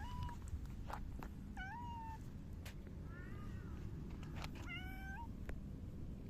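Silver tabby cat meowing: four short meows about a second apart, each rising then held, the third one fainter, with a few light clicks between them.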